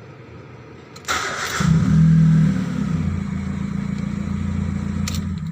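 Proton Persona 1.6's four-cylinder engine and leaking exhaust. About a second in there is a short rushing burst, then a loud low exhaust drone comes in, strongest for about a second before it settles to a steady running note. This is the sound of an exhaust leak.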